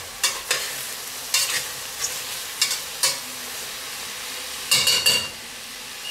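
Sliced mushrooms and onions sizzling faintly in a stainless steel pot as they are stirred, the utensil knocking and scraping against the pot every second or so, with a few sharper ringing knocks about five seconds in. The mushrooms are at the start of sautéing, before they release their water.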